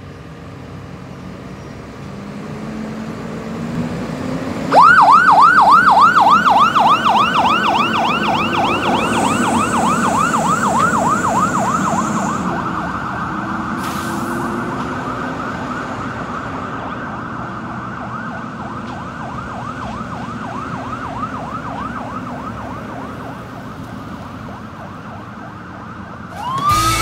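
Fire engine's siren starts suddenly about five seconds in on a fast yelp, sweeping up and down about three to four times a second, after its engine is heard pulling away. The siren fades steadily as the truck drives off.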